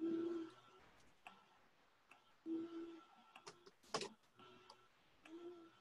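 Scattered sharp clicks from a computer, irregularly spaced, as presentation slides are clicked through one after another, the loudest about four seconds in. A few short low hums come in between, near the start, midway and near the end.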